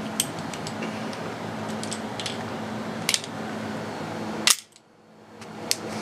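Scattered faint clicks over a steady low hum. About four and a half seconds in there is a sharper click, then the sound drops out abruptly and fades back in over about a second.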